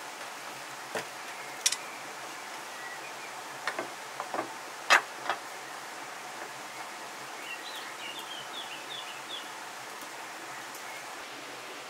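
Steady outdoor background hiss, with a few short clicks and knocks from raw chicken being handled on a steel tray in the first half, the loudest about five seconds in. Near the end a bird chirps a quick run of short notes.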